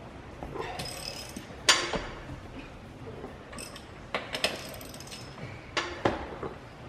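Scattered metal clinks and knocks from jacking up a pickup truck and loosening its wheel: a floor jack's handle being pumped and a lug wrench working on the lug nuts. The sharpest clank comes a little under two seconds in.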